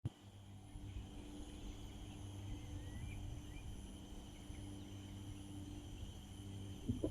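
Outdoor country ambience: a steady high insect drone over a steady low hum, with a couple of faint short bird chirps about three seconds in. There is a soft thump near the end.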